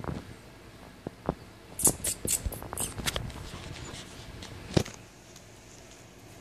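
A cat rolling and wriggling on its back on a coarse woven mat: scattered soft clicks, a cluster of scratchy rustles about two to three seconds in, and one sharp click just before five seconds in, the loudest sound.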